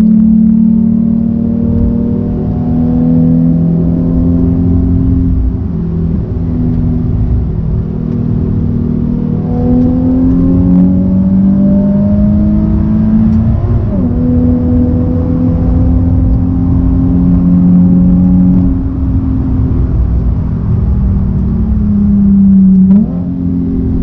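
Nissan 370Z's 3.7-litre V6 heard from inside the cabin, being driven hard on a road. The engine note climbs and falls with the throttle, with a quick drop and jump in pitch about halfway through, like a gear change, and a sharp jump in pitch near the end.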